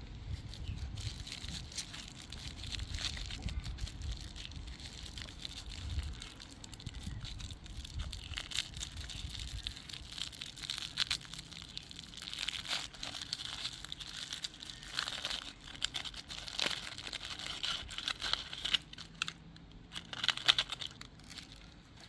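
Plastic candy wrapper crinkling and tearing as the packaging is handled and opened, in a long run of irregular crackles. A dull low rumble of handling runs under the first half.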